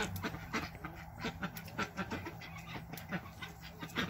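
Cattle eating food scraps close by: irregular crunching and chewing clicks.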